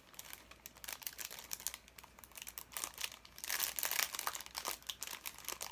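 Packaging crinkling and rustling in irregular crackles as items in the subscription box are handled, busiest a little past the middle.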